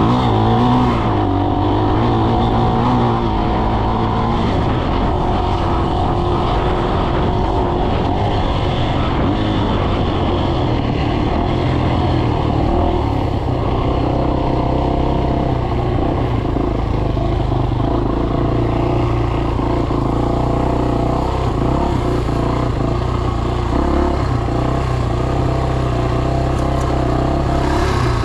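Dirt bike engine running under throttle, its pitch dipping and rising in the first few seconds, then holding fairly steady.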